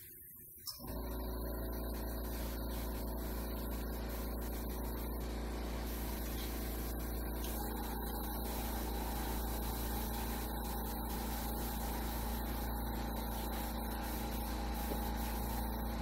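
Airbrush compressor running with a steady low hum, after a brief dropout in the first second.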